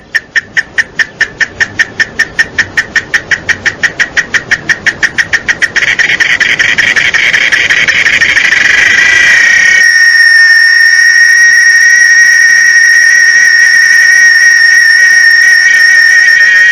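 Cicada song: a fast run of loud, sharp clicking pulses, about five a second. The pulses quicken and merge into a continuous high-pitched buzz that holds steady from about ten seconds in.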